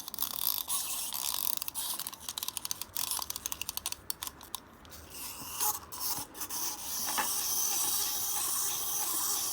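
Small plastic wind-up toys' clockwork clicking and ratcheting in a rapid run of fine clicks that thins out about five seconds in. A steady high hiss follows from about seven seconds in.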